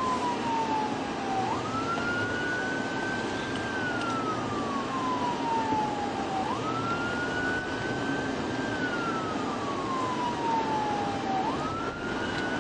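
Police car siren on a slow wail, each cycle jumping up quickly, then sliding down over about five seconds. Steady road and engine noise from the pursuing car runs under it.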